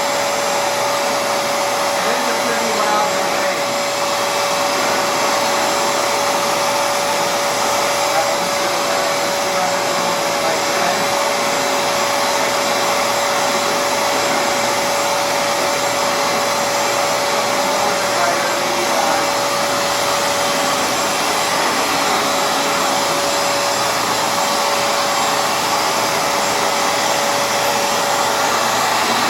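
Hoover FloorMate Edge hard floor cleaner running steadily: its motor gives a constant whine over a rush of suction air.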